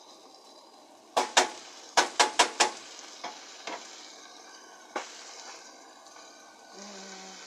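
A cooking utensil knocking against a pot on the stove: a quick run of sharp knocks in the first few seconds, then a few lighter ones, over a steady low hiss of food cooking.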